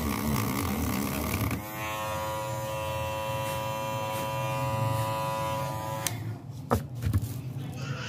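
Small handheld corded electric rotary tool running with a steady buzz, switched on about a second and a half in and cut off abruptly some four and a half seconds later. A couple of knocks follow as the metal turnbuckle is picked up.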